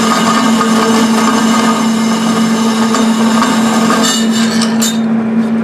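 Metal-cutting bandsaw running, its blade cutting through threaded rod (all-thread) with a steady motor hum under a high cutting hiss. Near the end the cutting noise drops away as the blade finishes the cut, and the motor keeps running.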